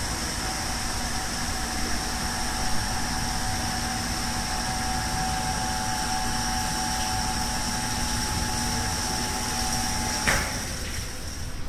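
Wave solder pallet cleaning machine running a cleaning cycle with its rotating basket: a steady mechanical drone with a high whine. About ten seconds in there is a click, and the whine fades away.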